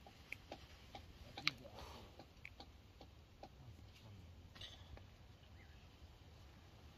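Faint, irregular small clicks and pops from a pot of porridge cooking over a wood fire. The sharpest click comes about one and a half seconds in, and the clicks thin out after about four seconds.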